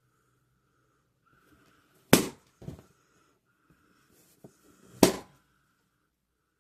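Two balloons popping about three seconds apart, each a sharp bang, with a quieter crack half a second after the first.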